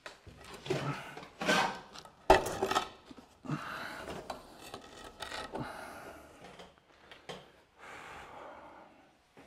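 Bonsai tools and materials handled on a work bench: irregular clinks and knocks with scraping and rubbing, the loudest a sharp knock a little over two seconds in.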